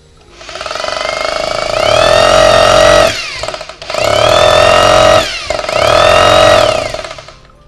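Bosch 500 W corded hammer drill run in its hammer (concrete-drilling) mode, triggered three times. Each time the motor whine rises as it spins up, holds at full speed, then cuts off, and the last run winds down near the end.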